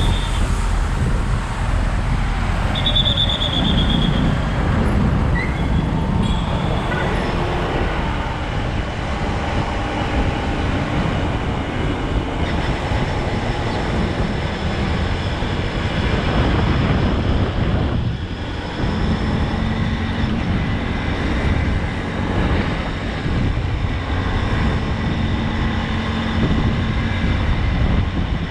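Honda Unicorn motorcycle running in busy street traffic, its engine mixed with steady road and wind noise and the sound of other vehicles. A short high beep comes about three seconds in.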